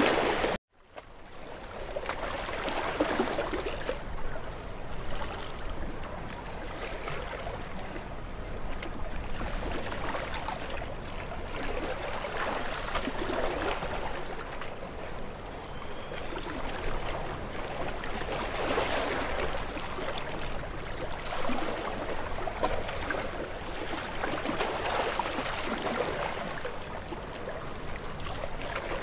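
Small waves washing in and lapping in a breeze, rising and falling every few seconds. The sound cuts out briefly about half a second in, then comes back.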